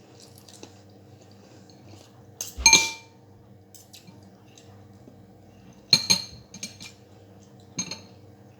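Cutlery clinking against dishes: two sharp clinks that ring briefly, about three seconds in and again about six seconds in, with lighter taps between and after.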